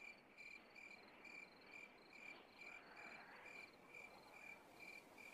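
Faint crickets chirping at night, short even chirps about twice a second with a thin high trill behind them.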